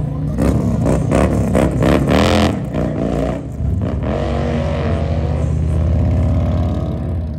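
Harley-Davidson touring motorcycle's V-twin engine revving and accelerating away, its pitch rising and falling several times in the first few seconds, then pulling more steadily with a slowly rising pitch.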